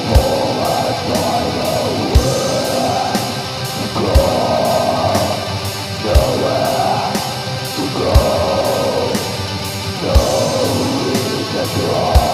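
Black metal music: dense distorted electric guitars over a steady cymbal pattern, with a heavy low drum hit about every two seconds.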